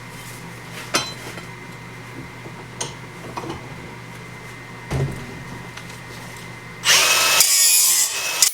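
A few light knocks and clicks of handling, then near the end a power tool runs loudly for about a second and a half.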